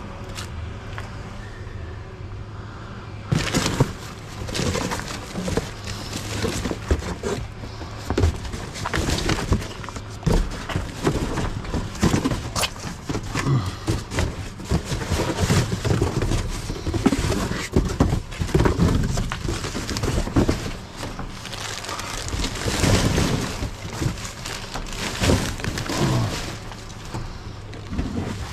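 Cardboard boxes and plastic bags being shoved and shifted by hand in a dumpster: irregular scraping, rustling and knocks, starting about three seconds in.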